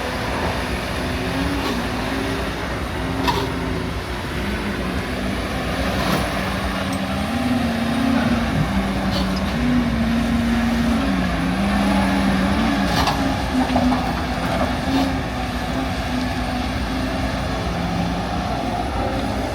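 LiuGong 942F excavator's diesel engine and hydraulics working, the engine pitch rising and falling under changing load, with a few sharp knocks.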